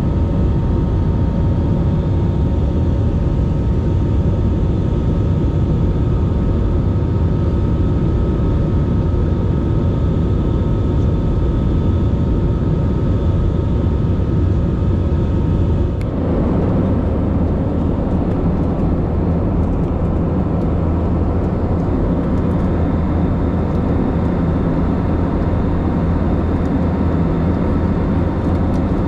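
Jet airliner cabin noise heard from a window seat over the wing in climb: the wing-mounted engines and rushing air make a steady, loud drone with a few faint steady tones above it. About halfway through, the sound changes abruptly to a fuller, brighter drone.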